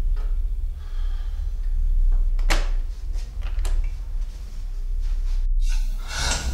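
A door handle and latch clicking as a door is worked open: a few sharp clicks, about a second apart, over a low steady rumble.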